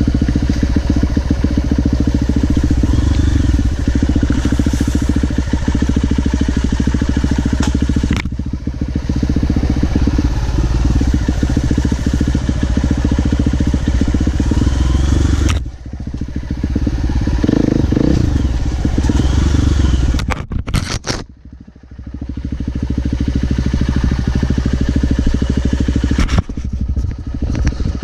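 Off-road motorcycle engine running as it descends a rough dirt trail, with occasional knocks from the bike. The engine note drops briefly about halfway through, and again, deeper, about three-quarters of the way in, before it picks back up.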